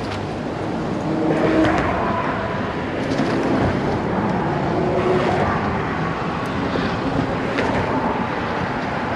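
Steady traffic noise from cars driving over the drawbridge: a continuous rumble and hiss at an even level.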